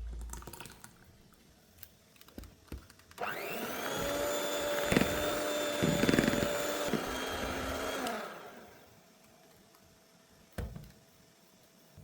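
An electric mixer switched on, whirring up to speed, running steadily for about four seconds, then winding down to a stop. A few light knocks come before it starts.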